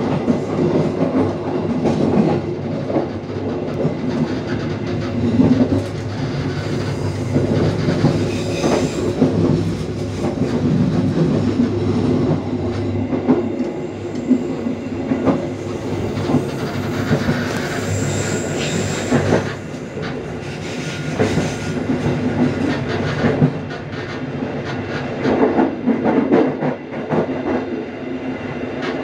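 Passenger train running along the line, the rolling noise of the coaches broken by a steady clickety-clack of wheels over the rail joints. A brief high wheel squeal comes about two-thirds of the way through.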